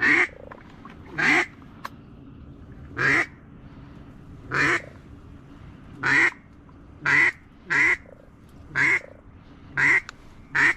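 Duck call blown in a series of about ten short, loud quacks, spaced roughly a second apart, to work an incoming duck toward the decoys.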